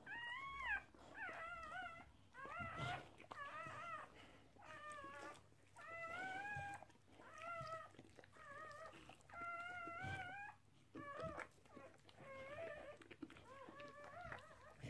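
Newborn American bulldog puppy crying in a string of high, mewing squeals, about one a second.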